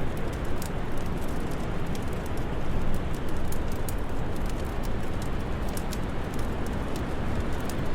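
Wood fire crackling, with irregular sharp pops several times a second, over a steady low rush of winter wind.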